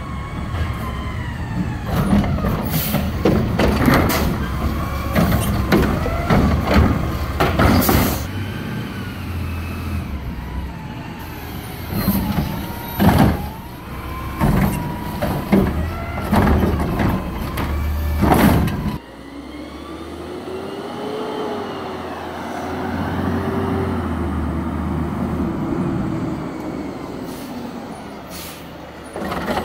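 Peterbilt front-loader garbage truck with a McNeilus body running while its automated arm lifts and dumps a wheeled trash cart into the carry-can: engine hum with repeated metal clanks and bangs and sharp air hisses. About two-thirds of the way through the clatter stops and the truck pulls ahead, its engine pitch rising and falling.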